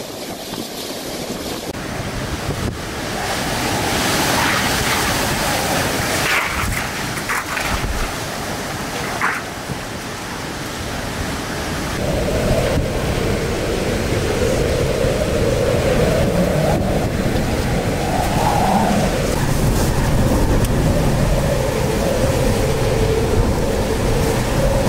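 Hurricane eyewall wind blowing hard with driving rain, the gusts buffeting the microphone. About halfway through the sound turns louder and steadier, with a howl that wavers up and down.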